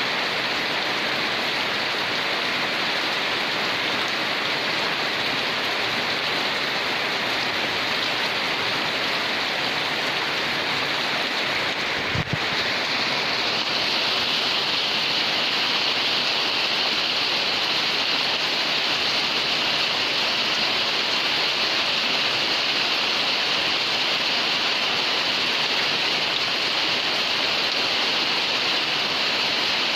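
Heavy rain pouring steadily, an even hiss of falling water. About twelve seconds in there is a brief low thump, after which the rain sounds slightly brighter.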